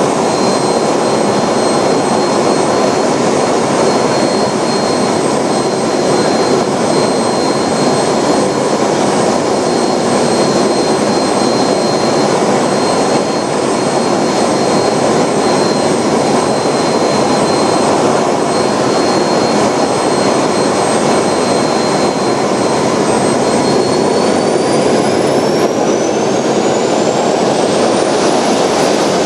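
Hammer model jet turbine running on a test stand: a loud steady jet roar with a high-pitched turbine whine. In the last few seconds the whine climbs steadily in pitch as the turbine spools up to higher power.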